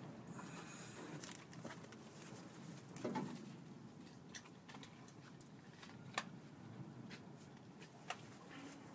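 Quiet background with a few faint, short clicks or taps, the sharpest about six seconds in.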